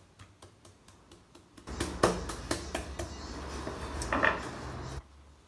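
Meat mallet pounding a cling-wrapped fish fillet flat: faint taps at first, then a run of louder knocks over a steady low hum that cuts off near the end. The pounding is kept mild, only to widen the fillet without crushing it.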